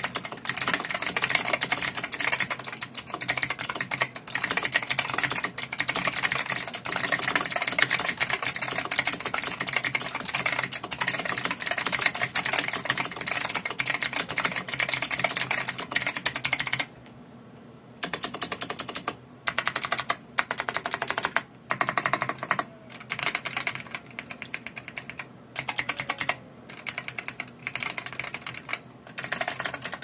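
Typing on a Unitek K-258 mechanical keyboard with Matias Click switches, clicky Alps-style keys: a fast, continuous run of key clicks, then from a little past halfway, shorter bursts of typing broken by brief pauses.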